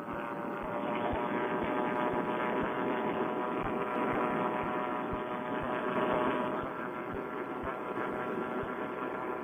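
Paramotor trike's Vittorazi Moster two-stroke engine and propeller running steadily in cruise flight, a constant-pitch drone.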